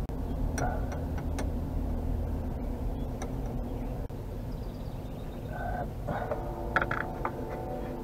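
A few light clinks of a socket wrench working on drive-shaft bolts, over a low rumble. A steady hum of several pitches comes in about six seconds in.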